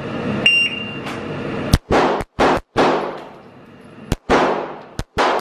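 An electronic shot timer's start beep, followed after about a second by a fast string of pistol shots: a quick group of three or four, a short pause, then three or four more. Each shot echoes in the indoor range.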